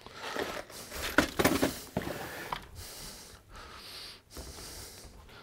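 Light clicks, taps and rustles of small screws and wooden blocks being handled and set onto a workbench jig. The taps come thickest in the first two and a half seconds, then give way to quieter rubbing and shuffling.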